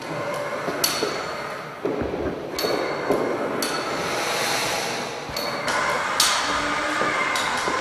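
Motorized kinetic sculpture running: a steady mechanical whirr with metallic clinks and ticks from its moving parts, the texture changing abruptly every second or two.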